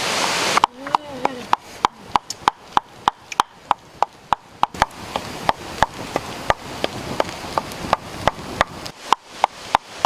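A wooden pestle pounding in a wooden mortar, grinding black peppercorns: sharp, hollow wooden knocks at about three a second. Just before the knocks start, a rushing noise cuts off about half a second in.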